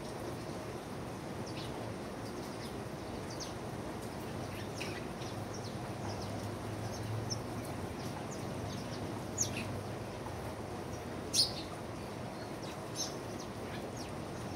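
Birds giving short, high chirps every so often, with a few sharper, louder ones in the later part, over a steady low background noise.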